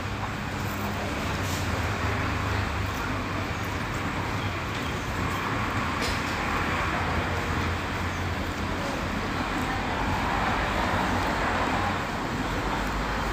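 Steady road traffic noise, with the low rumble of vehicles swelling slightly as they pass.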